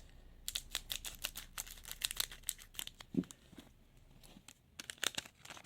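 A foil trading-card packet being torn open and crinkled: a quick run of sharp crackles, a pause, then more near the end.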